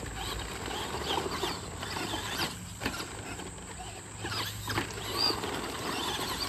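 Traxxas Slash 2WD RC truck's electric motor and gearing whining, with the pitch sweeping up and down again and again as the throttle is worked through the laps.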